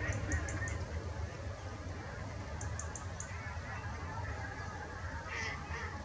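Waterfowl calling in the background, with louder honking calls about five seconds in, and a small bird's high, thin notes in quick runs of four near the start and again about halfway, over a steady low rumble.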